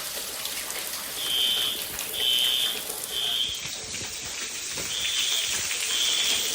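Fire alarm horn sounding the temporal-three evacuation pattern: three short beeps a second apart, a pause, then two more, over a steady hiss of water spraying from a burst sprinkler pipe.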